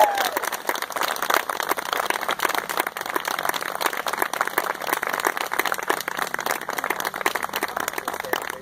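A small group of people applauding, many hand claps overlapping steadily.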